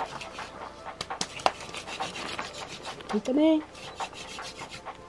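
Fire being made by hand drill: a wooden stick twirled between the palms against a wooden hearth board, a quick dry rubbing and scraping. A brief voice sounds about three seconds in.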